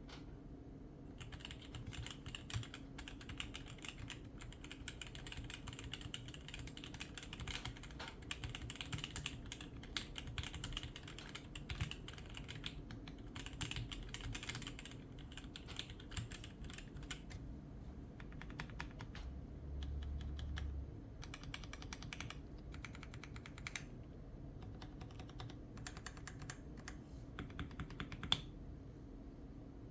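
Typing on a mechanical keyboard fitted with Cream Peach switches: a fast, irregular run of key clacks that starts about a second in and pauses briefly a few times. A louder key strike comes near the end.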